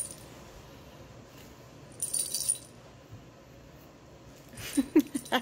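A plastic lattice cat-toy ball with a bell inside, jingling and rattling as it is waved and shaken: a short jingle about two seconds in, then a run of quick rattles and clicks near the end.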